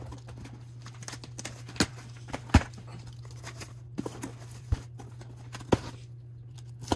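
Scissors cutting the packing tape on a cardboard shipping box, with hands handling the box: about six sharp clicks and knocks, the loudest a little after two and a half seconds in, over a steady low hum.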